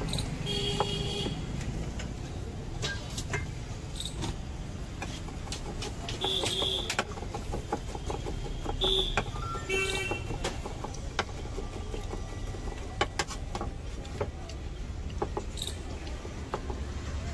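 Knife chopping on a wooden cutting board, irregular sharp knocks, over a steady low rumble of street traffic. A few brief high tones cut in about a second in and again in the middle.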